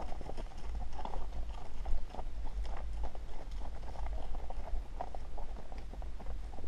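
Shod horses walking on a dirt trail, hooves clip-clopping in an irregular beat over a steady low rumble.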